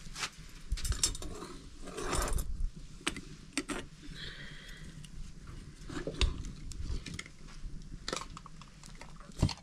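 Scattered metallic clinks and knocks from a metal cooking pan and utensils at a wood fire, irregularly spaced, the loudest one near the end. A brief high steady tone sounds about four seconds in.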